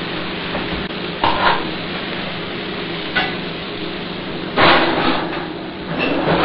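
Food sizzling steadily in a hot pan, with knocks and clatter of cookware as pans go into the oven. The loudest clatter comes about four and a half seconds in.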